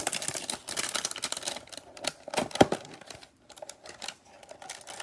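Crackling cellophane shrink wrap being torn off a cardboard trading-card box, then the box's cardboard flap pulled open, with one sharp snap about two and a half seconds in and quieter crinkling after.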